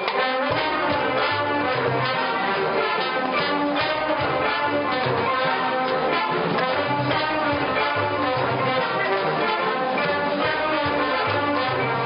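A large college marching band playing, loud sustained brass chords that change every second or so, punctuated by sharp percussion hits.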